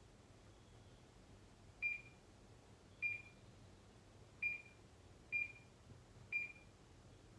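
Ideal 61-633 multimeter giving five short, high beeps about a second apart as its front-panel buttons are pressed to change the range and decimal place.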